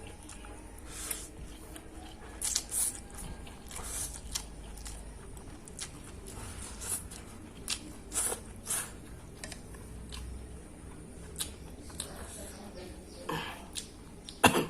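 A person eating fried instant noodles close to the microphone: chewing and wet mouth smacks, with irregular short clicks.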